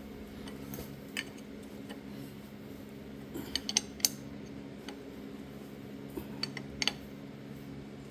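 Scattered light metallic clinks and ticks of hand tools working on a tractor's Delco distributor and its mounting bolts, a cluster of them about halfway through, over a steady low hum.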